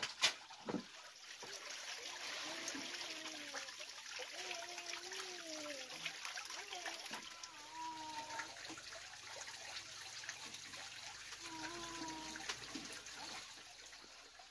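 Steady trickle of running water, with a sharp knock right at the start and several drawn-out calls that slide up and down in pitch.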